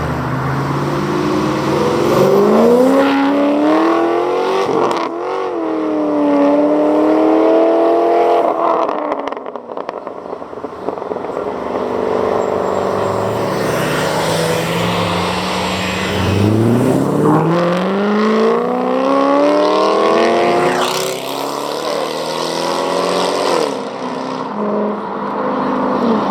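Chevrolet Corvette and Camaro V8 engines accelerating hard, the pitch climbing steeply twice, with exhaust crackles in the pauses between.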